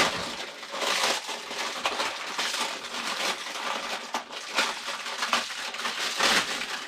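Plastic packaging and tape crinkling and crackling irregularly as it is pulled off a pair of exercise-bike pedals.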